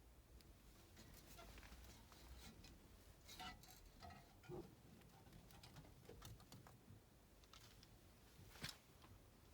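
Near silence with faint, scattered clicks and taps, the clearest a few seconds in and again near the end, over a low hum.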